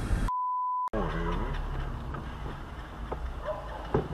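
A single pure beep tone lasting about half a second, dropped in where the soundtrack cuts from one clip to the next. It sits between a running engine at the start and a quieter low hum with a few short cries falling in pitch after it.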